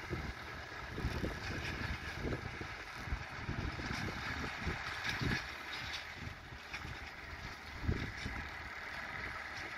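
John Deere tractor engine running as it pulls a double hay rake across the field, with wind buffeting the microphone in uneven gusts.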